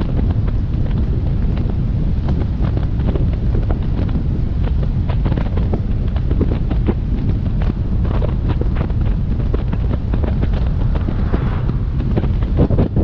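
Wind buffeting the microphone of an action camera mounted on top of a moving car, a steady heavy rumble mixed with the hiss of driving on wet pavement. Frequent short ticks and crackles run through it.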